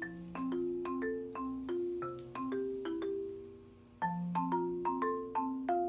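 Light background music: a bouncy melody of struck, marimba-like notes over a simple bass line, briefly fading out and starting again about four seconds in.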